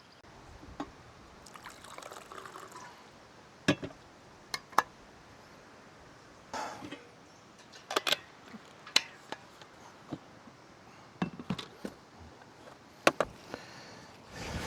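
Running water trickling and splashing, with sharp, irregular clicks and knocks scattered through it.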